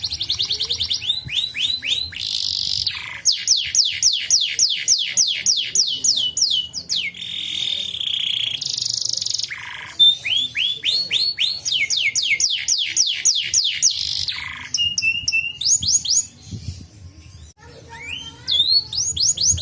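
Domestic canary singing a long song of rapid trills. Each phrase is a fast run of repeated, high, downward-sweeping notes, and the phrase changes every second or two, with a brief pause near the end.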